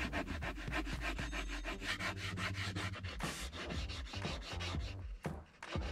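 Pencil scratching along the edge of an old seat base as it traces the outline onto an HDPE cutting board: a fast run of short scratchy strokes, pausing briefly near the end.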